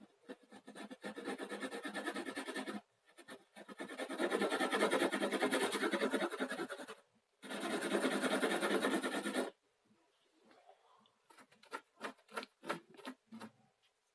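Pencil hatching on drawing paper: three spells of rapid back-and-forth scratching strokes, the middle one loudest, then a few scattered lighter strokes and taps near the end.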